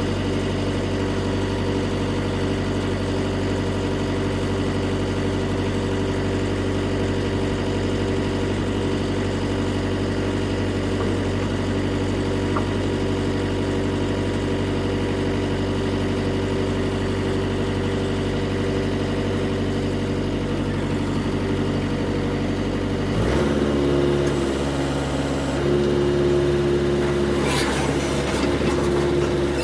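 Diesel engine of a Mitsubishi MS030 excavator running steadily. About 23 seconds in its note changes abruptly, as under load, and several sharp knocks come near the end.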